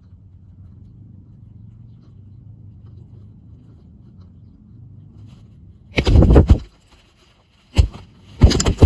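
A faint low hum, then loud bursts of rapid flapping close to the microphone about six seconds in, once briefly near eight seconds, and again near the end, typical of doves beating their wings at a ground decoy trap.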